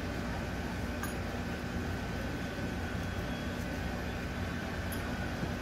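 Steady background hum with a faint steady tone. A couple of light clicks come through, about a second in and near the end, as small metal fuel-injector retaining clips are pulled off the fuel rail and set down on the plastic engine cover.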